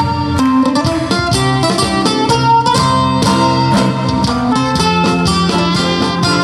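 Live band playing an instrumental passage: steadily strummed acoustic guitar with a trumpet melody over the band.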